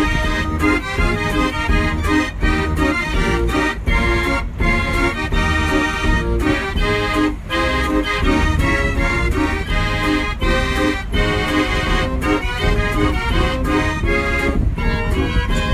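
Instrumental background music: sustained chords that change every second or so over a steady, full bass.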